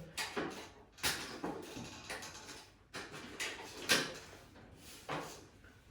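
Irregular knocks and clicks from handling a ratchet screwdriver, a screw and a plastic smoke alarm base: about six separate taps, the loudest about four seconds in.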